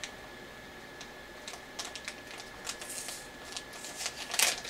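Packaging of a solid-state drive being handled: scattered light clicks and rustles, a brief hiss about three seconds in, and a louder crinkle near the end.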